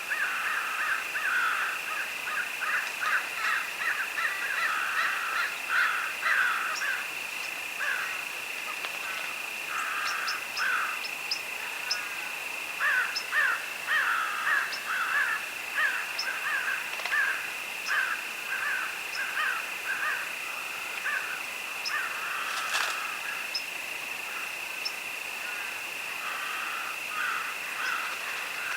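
A steady chorus of crickets trilling, with bursts of rapid, harsh animal calls repeating over it on and off, and a few faint high bird chirps.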